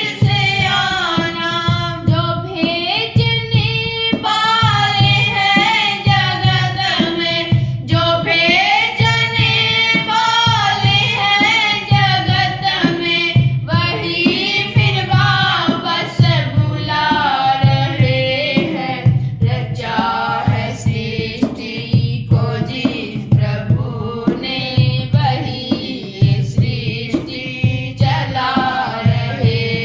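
A woman singing a Hindi devotional song (bhajan) with instrumental accompaniment over a steady low drum beat.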